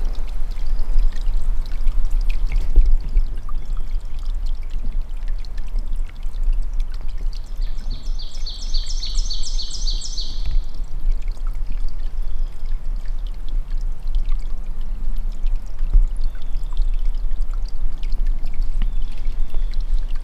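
Steady low rushing noise, heaviest in the deep bass, with a small bird's rapid trill of about a dozen high notes running for roughly three seconds from about eight seconds in.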